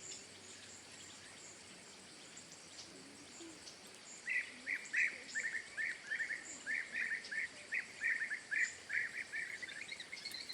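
A bird chirping: a quick, uneven run of short, sharp chirps, several a second, starting about four seconds in. Before that there is only a faint steady background hiss with thin high calls.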